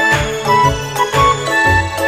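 Background music with a steady beat and bright, chiming melody notes.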